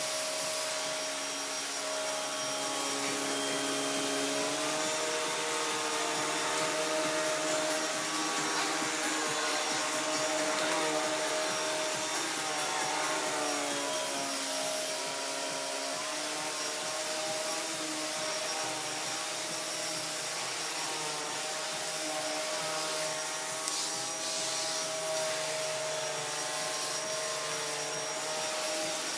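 Wertheim 4412 cylinder vacuum cleaner running, its motorised power head with a metal beater-bar brush roll working over carpet. Steady motor whine whose pitch shifts up and down at times.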